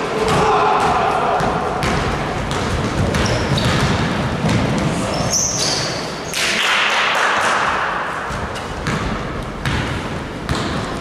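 Basketballs bouncing on a gym floor, with many sharp strikes throughout, over voices echoing in a large hall.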